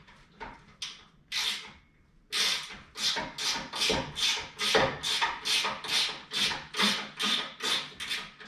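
Ratchet wrench worked quickly back and forth, backing out a bumper bolt that was not even tight. After a few separate strokes and a short pause, it settles about two seconds in into an even run of rasping strokes, about three a second.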